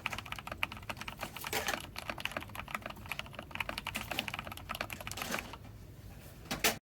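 Continuous typing on a Nexttime X75 mechanical keyboard with lubed Gateron Black linear switches, a stainless steel plate and doubleshot ABS SA-profile keycaps: rapid, irregular key clacks. The strokes thin out near the end, and the sound cuts off suddenly.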